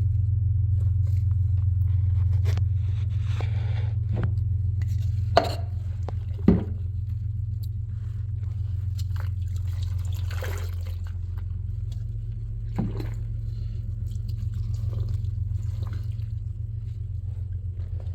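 Bathwater dripping and splashing in a tub around a soaking cat, with scattered scrapes and a few sharp knocks, over a steady low hum.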